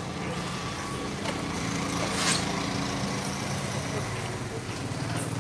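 A vehicle engine running steadily with a low, even hum, under scattered voices of people nearby. There is a brief sharp noise about two seconds in.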